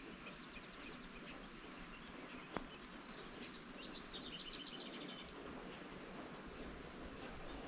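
Steady rain falling, with a bird singing a fast trill of repeated high notes in the middle, and one sharp tap about two and a half seconds in.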